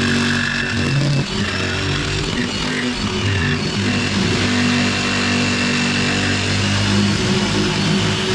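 Corded jigsaw cutting a birch plywood panel. The motor runs steadily, and its note wavers between about one and four seconds in before settling again.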